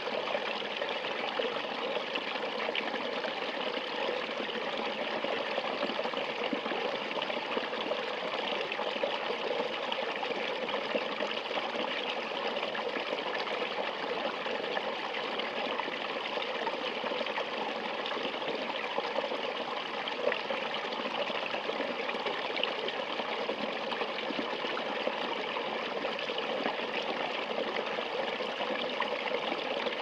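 Shallow stream running over rocks, a steady, unbroken trickling and splashing of water.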